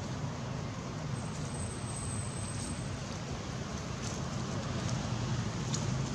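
Steady low background rumble with no distinct events, and a couple of faint ticks.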